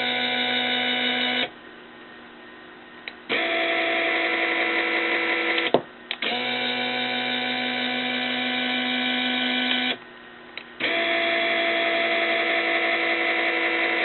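Electric screw-drive linear actuator motor whining as it is run back and forth by radio remote. It stops and restarts four times, with a slightly different pitch on each run. Short relay clicks sound as it switches direction.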